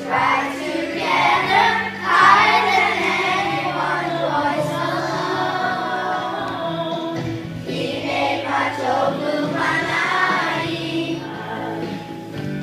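A choir singing a song, with steady held notes from an instrumental accompaniment underneath.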